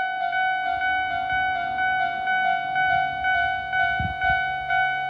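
Tobu Railway level-crossing warning bells ringing in a fast, even electronic ding-ding rhythm, about three strokes a second, warning that a train is approaching. The far-side bell is shrill and high-pitched.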